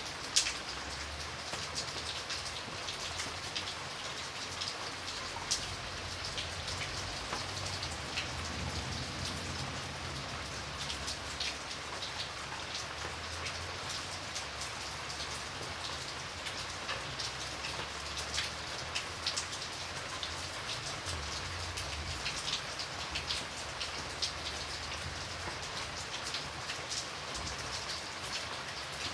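Light rain falling steadily, individual drops ticking sharply against a constant hiss of rain, with one louder drop about half a second in and a faint low rumble underneath.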